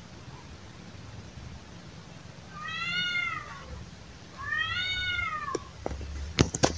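Domestic cat meowing twice during courtship, two drawn-out calls that rise and then fall in pitch, about a second and a half apart. A few sharp clicks follow near the end, two of them loud.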